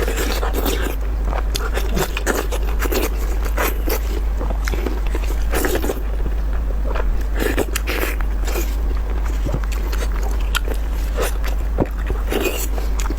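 Close-miked eating: wet chewing and lip-smacking, with many quick smacks and clicks, as a person eats pork large intestine stuffed with pig brain.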